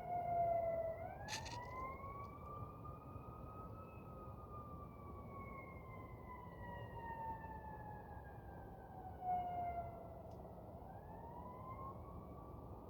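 Emergency vehicle siren wailing, its pitch rising over a few seconds, falling slowly for about seven seconds, then rising again near the end. A short click about a second in.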